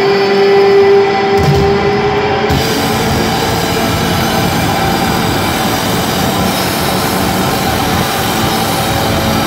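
Live arena rock concert heard through a phone microphone: a long amplified note, bent down and then held, cuts off about two and a half seconds in. It leaves a steady dense roar of crowd noise and band sound.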